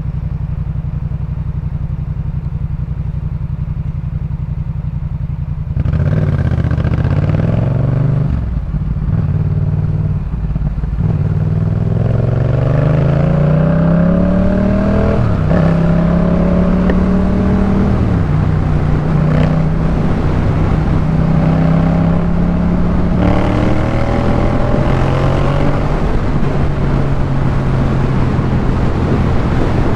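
2018 Yamaha MT-07's 689 cc parallel-twin engine, breathing through a Jeskap K4 full aftermarket exhaust, idling for about six seconds. It then pulls away and accelerates through the gears, the pitch climbing and dropping at each shift, before running at a steadier speed with air rushing past.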